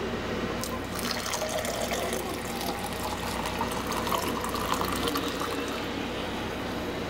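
Coffee poured from a glass French press into a tall ceramic mug, a steady stream of liquid filling the mug.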